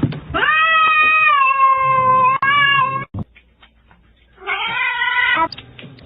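A domestic cat meowing: one long drawn-out meow of nearly three seconds, its pitch sinking slightly toward the end, then a shorter meow about four and a half seconds in.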